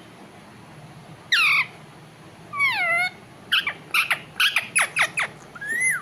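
A rose-ringed parakeet calling. A short squawk comes about a second in and another about halfway, then a quick run of short, sharp notes that fall in pitch, and a rising call near the end.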